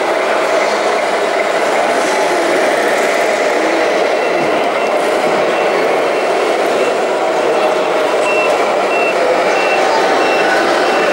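Reverse-warning beeper of a radio-controlled Mercedes-Benz Actros model truck's sound unit: a steady run of short, evenly spaced high beeps that starts about four seconds in, over a constant background din.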